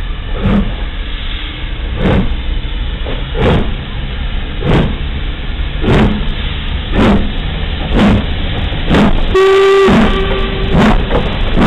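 LMS Black Five two-cylinder 4-6-0 steam locomotive 45305 pulling away under load, its exhaust beats quickening from roughly one every one and a half seconds to about one a second. A short whistle blast sounds about nine seconds in.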